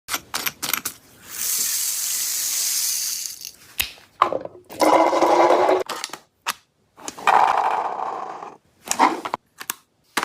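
Toy gel blaster clicking and firing in two short bursts of rapid whirring, with sharp clicks between them.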